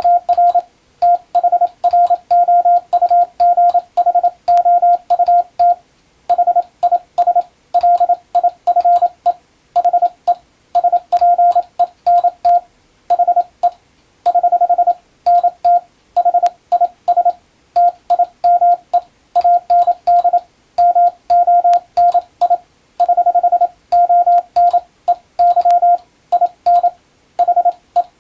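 Morse code (CW) tone of about 700 Hz keyed on and off in dots and dashes, with short gaps between characters and words and sharp clicks at the keying. It is code practice of English-language telegram text.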